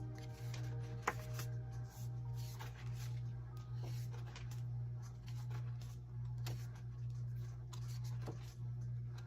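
Paper and card handling: scattered rustles and light taps of album contents being moved about, over a steady low hum.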